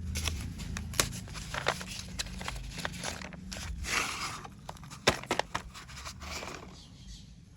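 Close-up handling of a packet of slate pencils: rustling and scraping of the packaging, with a few sharp clicks, the loudest about a second in and about five seconds in, growing fainter near the end.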